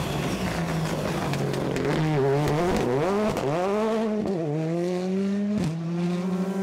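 Rally car engine running hard on a stage. Its pitch holds fairly steady at first, then climbs and drops several times as it accelerates and lifts, and settles again near the end. A single sharp knock comes late in the run.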